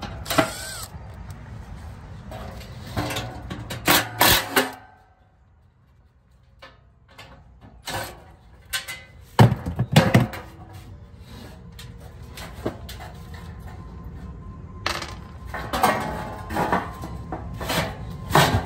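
Irregular clanks, knocks and rattles of a galvanized sheet-metal blower housing and its squirrel-cage blower wheel being handled and taken apart. It pauses briefly about five seconds in and then picks up again, with a few loud knocks around ten seconds.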